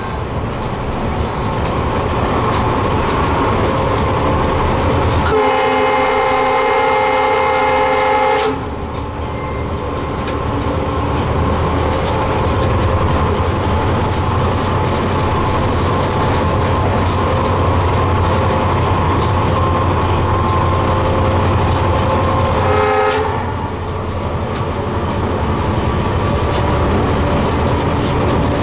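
Cab interior of an EMD GT46MAC (WDG4D) diesel locomotive on the move: its 16-cylinder two-stroke turbocharged 710 engine and wheels make a steady loud rumble. The locomotive's horn sounds one long blast of about three seconds some five seconds in, then a brief blast near the 23-second mark.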